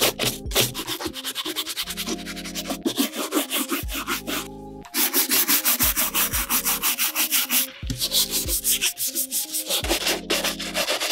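Stiff bristle brush scrubbing dried dirt off a 106-year-old WW1 leather boot in quick back-and-forth strokes, over the leather upper and the hobnailed sole. There is a short pause a little before halfway, and the strokes are loudest just after it. Background music with a light beat plays underneath.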